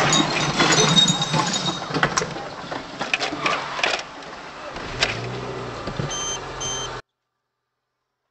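Car interior noise picked up by a dashcam: a steady hum of engine and road with a few sharp clicks and rattles. It cuts off abruptly about seven seconds in.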